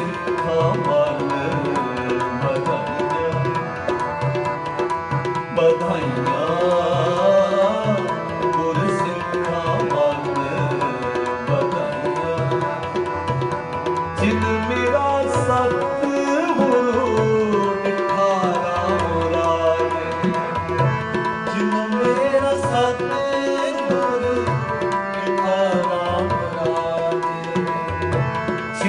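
Shabad kirtan: two harmoniums sustain chords and melody while a tabla pair plays a steady rhythm. Men's voices sing a gliding devotional melody over the instruments.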